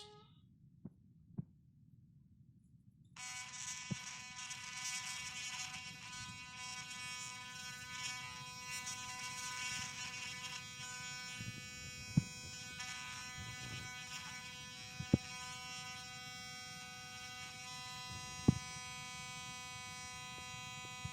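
Oclean One sonic electric toothbrush switching on about three seconds in and running with a steady buzz, the sound the owner presents as abnormal. Three sharp clicks stand out over it later on.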